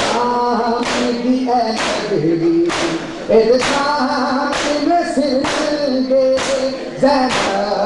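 Men chanting a noha a cappella, punctuated by loud synchronized chest-beating (matam): many hands slapping bare chests together, a little under once a second.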